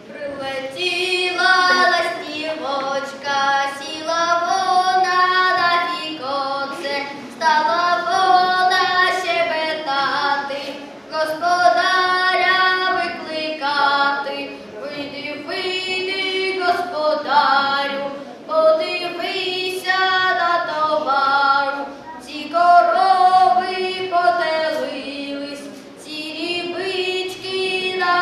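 A young boy singing a traditional folk song solo and unaccompanied, in sustained phrases with short breaks for breath between them.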